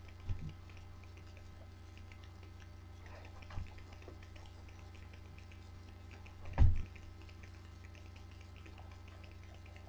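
Steady low electrical hum picked up by a webcam microphone, broken by three dull thumps: a small one right at the start, one a little after three seconds, and a much louder one about six and a half seconds in. Faint light clicking, like typing on a computer keyboard, runs underneath.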